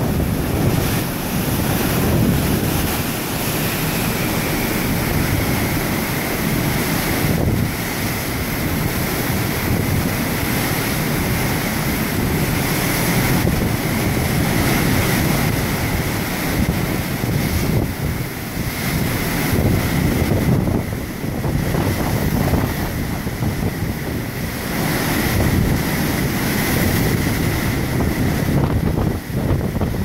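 Seawater rushing and breaking in white water along a cruise ship's hull as the ship pushes through a choppy sea, with strong wind buffeting the microphone. It is a steady, loud rush throughout.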